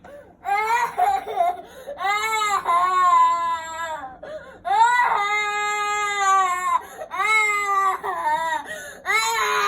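An infant crying hard: a string of long wailing cries, each one to two seconds long, with short catches of breath between them.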